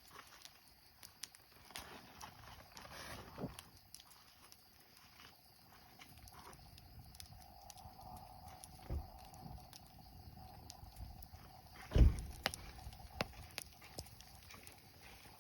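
Wood campfire crackling, with irregular sharp pops and a faint steady whistle from about halfway through. A single heavy thump comes about twelve seconds in.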